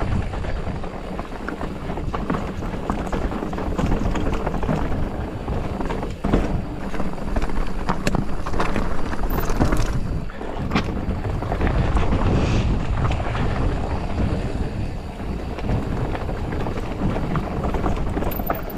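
Polygon Siskiu T8 mountain bike ridden over a dirt trail, with a steady low rumble of wind on the microphone and tyre noise, crossed by irregular clicks and knocks from the bike rattling over bumps.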